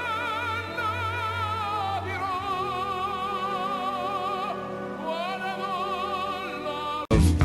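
Operatic singing: one voice holding long notes with a wide vibrato, sliding down between notes twice. It cuts off suddenly about seven seconds in, where guitar music begins.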